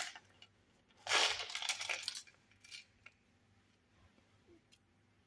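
Whole cloves tipped into the pot: a burst of small clicking and rattling about a second in, lasting about a second, followed by a couple of faint ticks.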